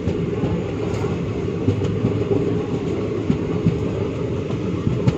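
Passenger train running at speed, heard from the open doorway of a moving coach: a steady low rumble of wheels on rail with a few faint clicks.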